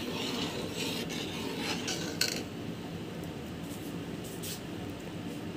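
Steel spoon stirring and scraping in an aluminium pot of milk, with a few clinks of metal on metal about two seconds in, then quieter.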